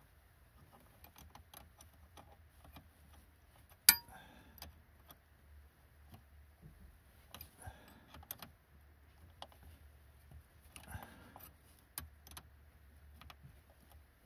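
Scattered small metallic clicks and taps from hands working a copper brake pipe fitting, with one sharp, much louder click about four seconds in.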